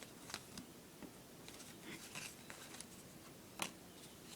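Faint rustling and light clicks of trading cards being handled and shuffled through by hand, with one sharper tap about three and a half seconds in.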